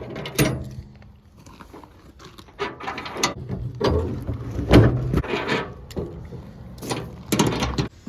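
Irregular metallic clanks and rattles, a dozen or so sharp knocks at uneven spacing, over a low steady hum.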